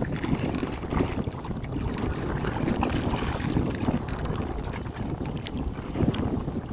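Strong wind buffeting the microphone, a steady low rumble that swells and dips in gusts.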